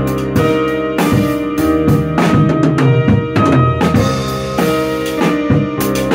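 Drum kit being played: kick drum, snare and cymbal hits in a busy groove, over sustained pitched notes of accompanying music.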